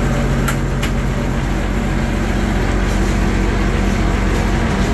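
Allis-Chalmers 190 XT Series 3's turbocharged six-cylinder diesel engine running steadily, heard from inside the tractor's metal cab, where it is loud and drummy. Two sharp clicks sound about half a second and just under a second in.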